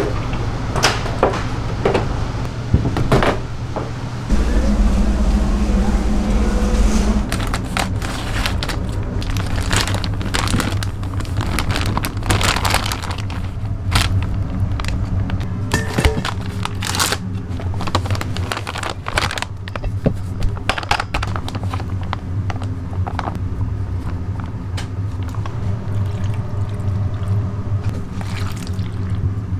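Kitchen work sounds at a fried chicken shop: frequent clattering and knocks of utensils and containers over the steady low hum of equipment, with a steady tone for about three seconds near the start.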